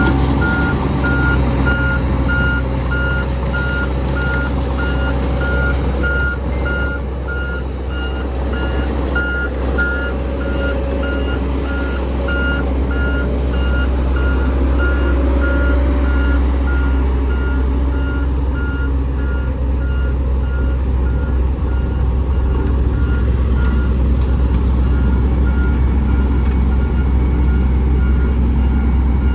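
Back-up alarm of a heavy construction vehicle beeping at a fast, even pace, over the steady low sound of its engine running.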